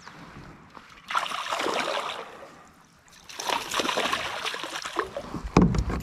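A hooked smallmouth bass splashing and thrashing at the water's surface in two bursts as it is brought in, followed by a thump near the end.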